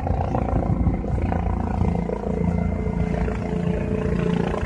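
Medical helicopter running close by: a continuous loud rotor rumble with steady humming tones held over it.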